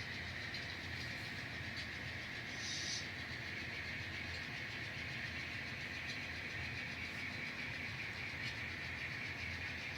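N scale model locomotive running on the layout during switching: a steady hum with a brief higher hiss about two and a half seconds in.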